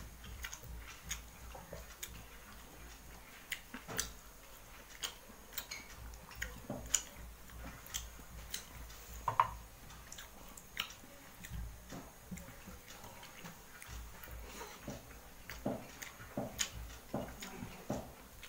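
Eating by hand: irregular small clicks and smacks as fingers mix rice and greens on a stainless steel plate and the eater chews, a few of them sharper than the rest.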